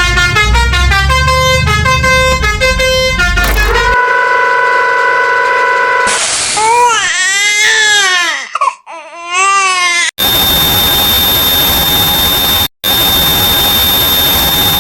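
A string of cartoon vehicle sound effects. First comes a quick run of short beeping notes over a low bass, then a held car-horn honk for about two seconds, then a wavering wail that rises and falls several times. From about ten seconds in there is a steady hissing rush with a thin high whine, cut off briefly once.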